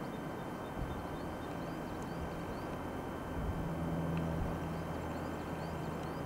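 Distant steam train, LNER A4 Pacific 60019 Bittern hauling its coaches, heard as a low steady rumble that swells a little about halfway through, with small birds chirping.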